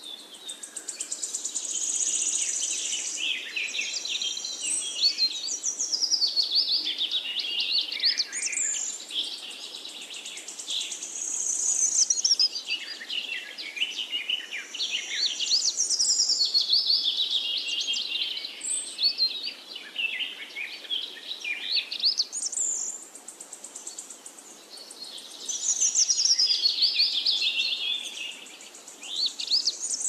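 Songbirds singing: long phrases of quick, high chirping and trilling notes, broken by a few short lulls.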